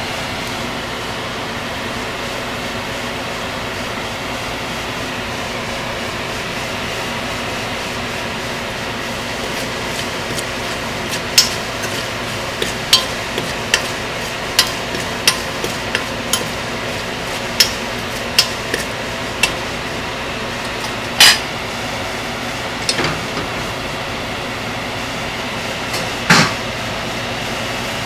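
Whole spices (dry red chillies, cardamom, cumin, bay leaf) frying in hot oil, popping sharply a dozen or so times at irregular intervals from about a third of the way in, over a steady background hum.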